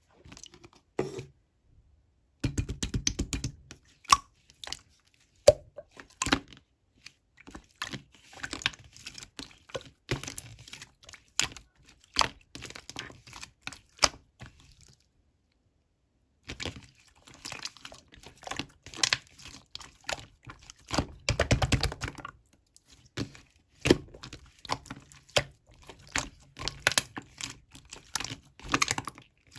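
Clear slime being squished and stretched by hand, giving dense runs of sticky popping clicks and crackles, with a short pause about halfway through.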